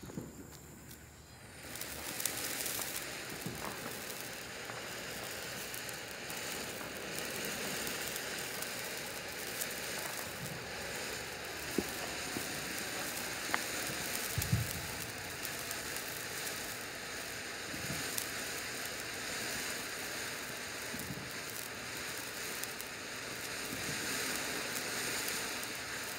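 Ground fountain firework catching about two seconds in, then hissing steadily as it sprays sparks, with a few faint crackles and pops.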